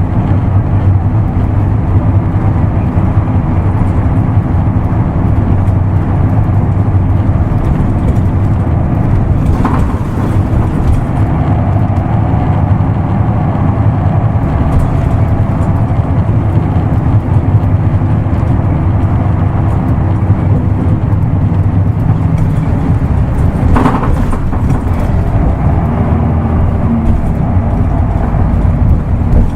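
Isuzu Erga Mio bus's inline-six diesel engine running steadily under way with a low drone. There is a short click about ten seconds in and another near the end.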